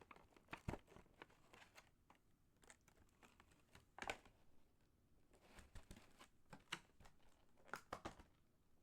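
Faint crinkling and rustling of card packaging and paper being handled, with scattered small clicks and taps; the sharpest ones come about 4 s in and again near the end.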